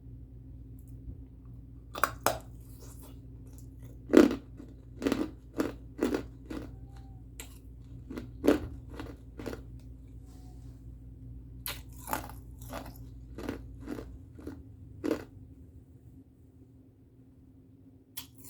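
A person biting and chewing ice close to the microphone: loud, sharp crunches coming in irregular clusters, then a pause of a few seconds before one last crunch at the end.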